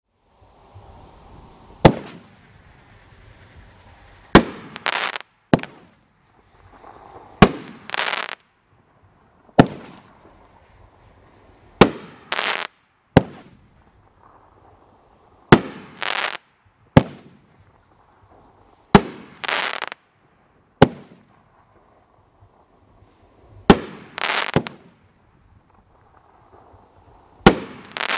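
'The Big Dog' consumer firework cake firing one shot about every two seconds. Each shot is a sharp bang, often followed less than a second later by a short rushing crackle as the break bursts into crackling stars. A faint hiss comes before the first bang.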